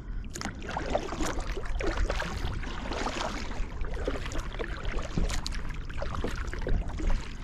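Water splashing and gurgling against a kayak's hull as it moves along, with irregular small splashes throughout.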